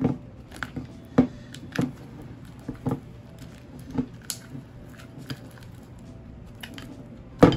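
Fluffy slime made with white glue and shaving foam being stirred and pulled with a plastic spatula in a glass bowl just after activator is added. It makes wet, sticky squishes about one or two a second, the loudest near the end, as the slime starts to thicken.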